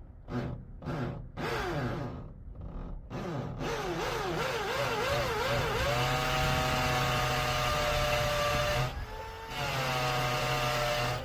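Electric drill boring a mounting hole in a wall. It starts with a few short trigger pulses, each winding down in pitch, so the bit does not walk across the wall. The speed then wavers under the trigger before it runs steadily, dips briefly about nine seconds in, and cuts off near the end.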